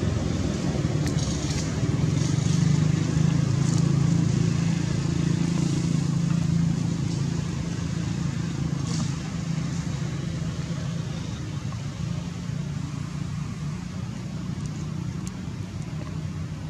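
Low, steady rumble of distant motor traffic that slowly fades, with a few faint high clicks over it.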